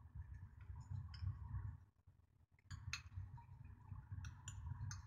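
Scattered faint clicks and light clinks of a small bowl knocking against a pan rim as sesame paste is scraped out of it with the fingers, over a low hum, with a brief drop-out about two seconds in.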